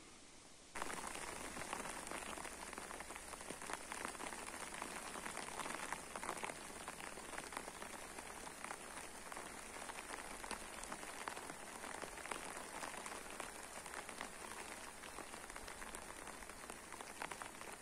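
Rain falling steadily, a dense patter of drops that starts abruptly about a second in.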